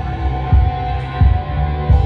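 Live electronic music from keyboards and synthesizers: held synth notes over a thudding low bass beat.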